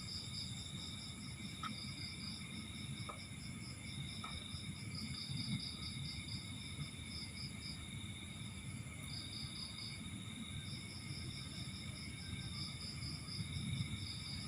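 Insects, crickets by the sound, chirping in rapid high pulsed trills that stop and start, over steady high-pitched droning and a low background rumble. A few faint small clicks.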